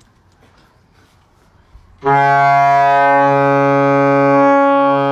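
Faint low sounds, then about two seconds in a loud, steady horn-like note with many overtones starts abruptly and holds.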